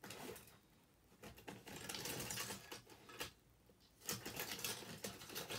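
Irregular clicking and clattering of small hard plastic parts being handled, in several bursts.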